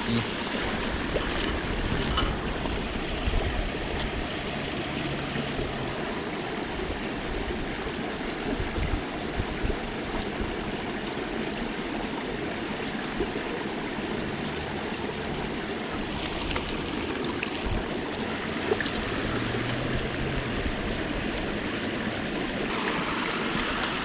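Small creek's water running steadily.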